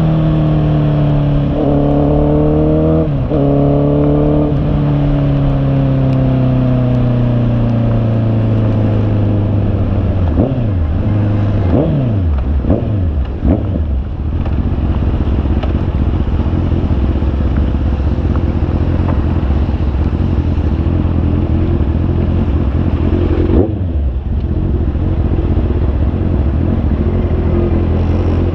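Honda CB650R's inline-four engine running, its pitch falling steadily over the first several seconds as it slows. A few quick pitch drops come around ten to fourteen seconds in, then it settles into a steady low running note.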